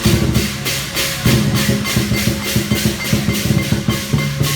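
Chinese dragon-dance percussion: a large drum and clashing cymbals beating a fast, steady rhythm, the cymbals striking about four to five times a second.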